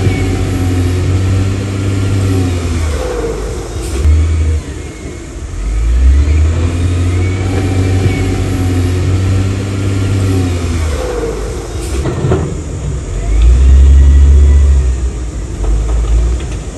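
Heavy diesel engine of earthmoving machinery revving up and easing off several times as it works under load, with a strong deep engine note.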